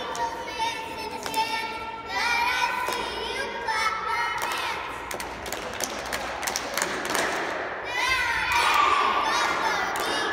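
A group of young girls shouting a cheer together in chanted phrases, with a run of sharp thumps from claps and stomps in the middle before the chanting comes back louder.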